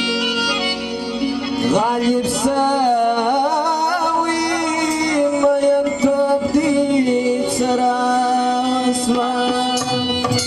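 A man sings a Pashto ghazal in long, wavering, ornamented phrases, coming in about a second and a half in, over sustained reedy keyboard chords, with a few sharp percussion strokes.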